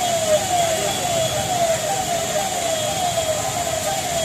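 A siren repeating a short falling tone about twice a second, over the steady hiss of heavy rain.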